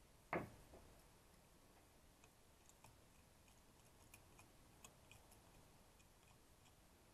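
Workbench near silence broken by a single sharp knock, like a tool or small object set down, about a third of a second in. After it come faint, scattered light clicks of a small metal hand tool working at a circuit board.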